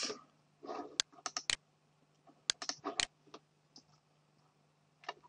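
Scattered clicks and key taps on a computer keyboard and mouse, irregular and spaced apart, over a faint low hum.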